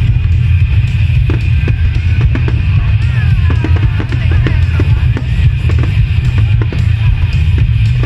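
Aerial fireworks bursting in a run of sharp, irregular bangs and crackles that start about a second in, over loud drum-heavy music with a heavy bass.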